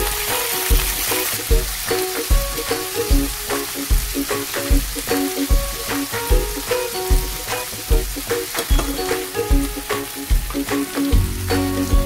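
Octopus pieces sizzling in oil in a frying pan as they are stirred, over background music with a steady beat.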